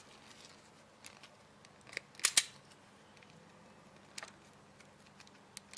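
Irwin Vise-Grip self-adjusting wire stripper clamping and stripping the insulation off a wire: a few scattered sharp clicks, the loudest a quick pair about two seconds in.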